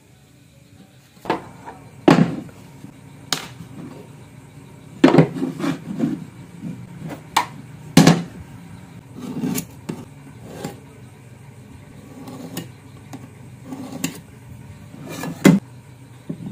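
Wooden frame pieces and steel hand tools being handled and set down on a workbench: irregular sharp knocks and clatters, one every second or two, with some quieter handling noise between them.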